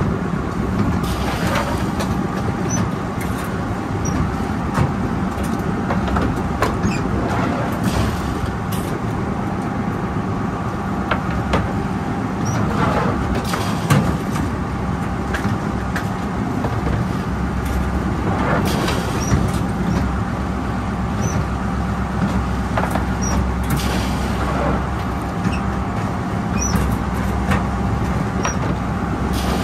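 A work boat's engine running steadily under way, with water rushing along the hull and scattered sharp knocks and clatters from gear on deck.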